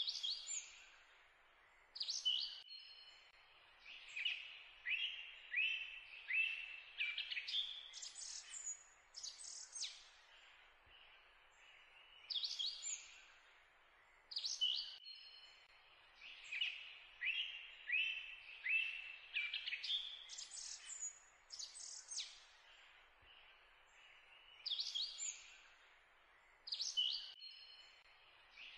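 Birdsong: short, high chirps and trills in a sequence that repeats about every twelve seconds, as from a looped recording.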